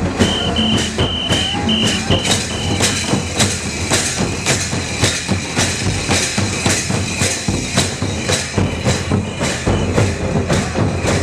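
Santal folk drums, a hand-played barrel drum (tumdak') and a large kettle drum (tamak') beaten with sticks, playing a steady, driving dance beat of about two to three strokes a second. A run of short high notes sounds over the first few seconds and briefly again near the end.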